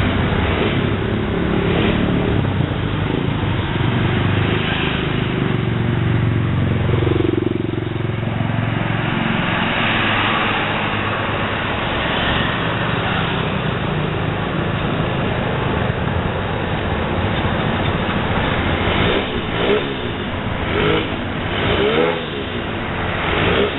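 Tour buses of a convoy driving past, with engine and road noise. Engines rev up and down several times near the end.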